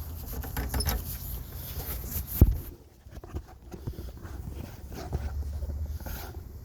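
Scattered knocks and rustling with a low rumble, and one sharp, loud thump about two and a half seconds in.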